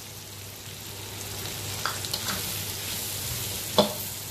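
Beef chunks, capsicum and onion sizzling in ghee in a karahi while a metal spatula stirs and scrapes through them. A few light clicks, then one sharp knock of the spatula against the pan near the end.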